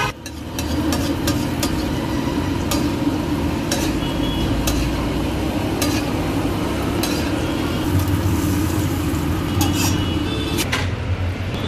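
Eggs sizzling on a flat iron tawa, with a steel spatula scraping and tapping on the hot metal in scattered sharp clicks as the eggs are worked and lifted off.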